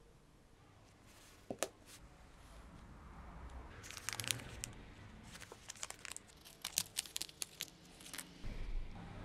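Small plastic bag being handled and opened by hand: a couple of sharp clicks about a second and a half in, then a dense run of crackles and clicks from about three and a half seconds until shortly before the end.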